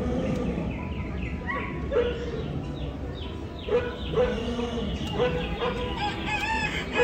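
Recorded farmyard chicken sounds: hens clucking in short repeated calls, with a rooster crowing near the end, over a steady low rumble.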